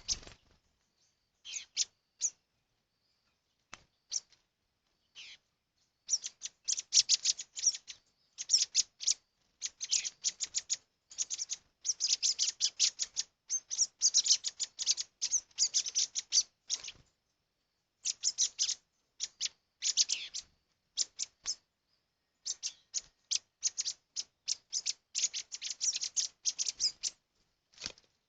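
Small birds chirping in quick runs of short, high chirps, with brief pauses between the runs.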